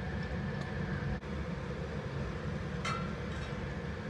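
Steady low rumble of a gas burner under a steel wok, with a single ringing metal clink against the pan about three seconds in. The rumble breaks off for an instant just over a second in.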